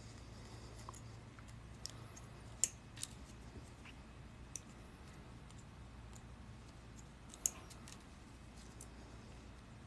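Sparse small metallic clicks of pliers and paperclip-wire jump rings being picked up and worked, with sharp clicks about two and a half and seven and a half seconds in and a few fainter ones between.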